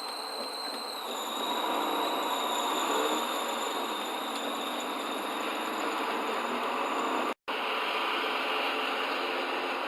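Road and running noise of a moving Ford Fiesta heard from inside the cabin, with a steady high-pitched whine that steps down slightly in pitch about a second in. The sound cuts out completely for an instant about seven seconds in.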